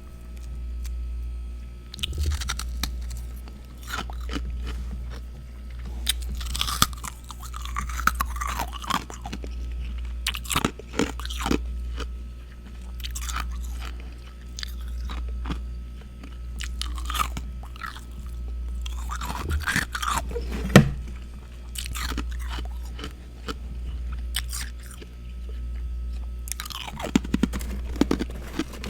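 Close-up biting and chewing of crunchy freezer frost: sharp crunches in irregular clusters, some loud single bites among them. A steady low hum runs underneath.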